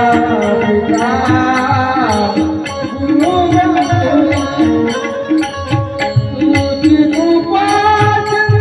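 Devotional kirtan music: steady held drone tones with a gliding melody line over them, kept in time by regular cymbal clinks and drum beats.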